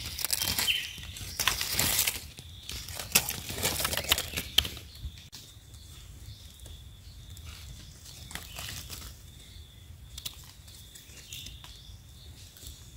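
Dry fallen leaves rustling and crackling as they are handled and pushed aside, dense for the first few seconds and then sparser. Small clicks follow as a knife trims a mushroom stem near the end. A faint steady high tone sits under it throughout.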